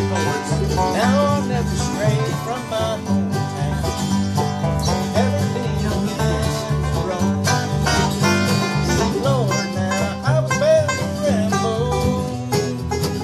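Bluegrass-style acoustic jam: acoustic guitar keeping a steady alternating-bass rhythm with banjo picking over it, and a lead line that slides up and down in pitch.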